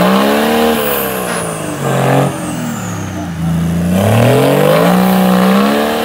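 Competition off-road 4x4's engine revving hard under load as it climbs a mud slope. The revs surge, sag through the middle, then climb again and hold high.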